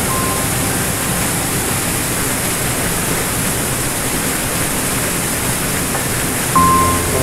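Water cascading down a small rocky waterfall into a pool, a steady rushing splash. A soft piano note comes in near the end.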